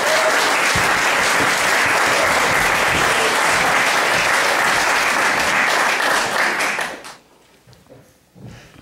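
Audience applauding steadily, dying away about seven seconds in.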